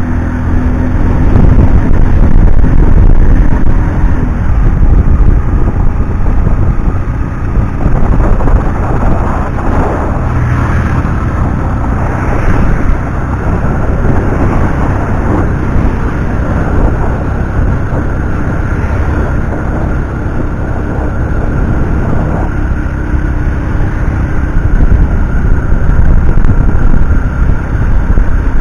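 A road vehicle on the move, heard as a loud, continuous low rumble of engine, tyre and wind noise with faint steady tones over it.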